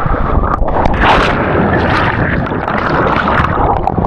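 Rushing water on a natural rock water slide pouring over and around the camera microphone as a person slides down the chute, a loud dense rush that ends in a splash into the pool.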